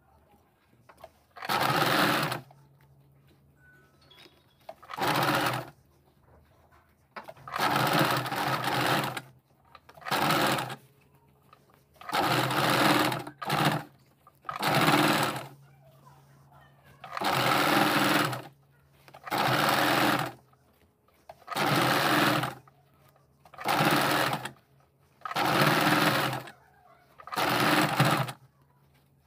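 Electric domestic sewing machine stitching a pleated fabric frill onto a blouse in a dozen or so short runs of about a second each, stopping briefly between runs while the cloth is guided.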